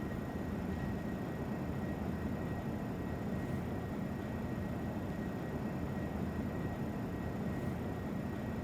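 Steady low hum and hiss of background noise with a faint, constant high tone, unchanging throughout.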